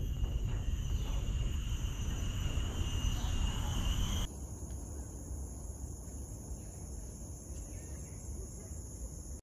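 Insects trilling steadily in high, unbroken tones, over a low rumble of wind on the microphone. About four seconds in, the sound changes abruptly to a different, quieter set of insect tones with less rumble.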